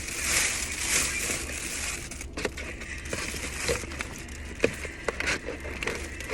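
Crinkling and crumpling of fast-food paper packaging, with scattered small clicks and knocks in the second half.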